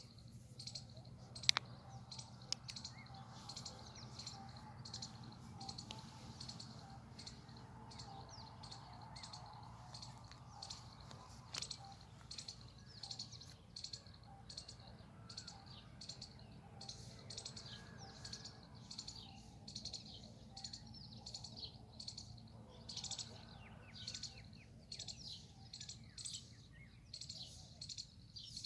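Small birds chirping and twittering in quick, irregular high-pitched notes over a low steady hum, with a sharp click about a second and a half in.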